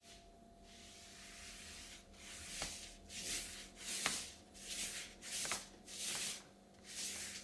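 A brush or applicator swishing across paper in repeated short strokes, about one a second, spreading a liquid coating that the paper soaks up.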